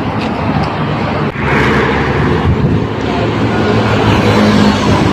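Steady rumble of highway traffic, briefly dipping about a second in.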